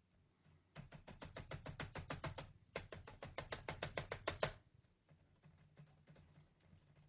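Keys typed on a GIGABYTE Phantasus P15F V3 laptop keyboard: two runs of rapid, even keystrokes at about eight a second, then a few light, scattered taps.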